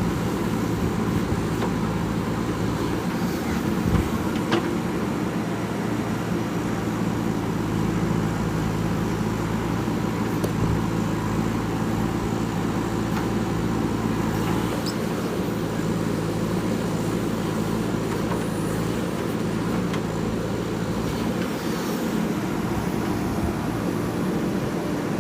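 Diesel engine of a JCB 3DX backhoe loader running steadily while it works, with a couple of dull knocks, one about four seconds in and one about ten seconds in.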